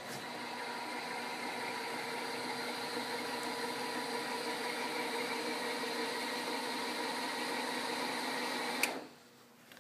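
Power engine hatch actuator on a Fountain 38 Lightning powerboat running as the hatch opens: a steady motor hum for about nine seconds that stops with a click near the end.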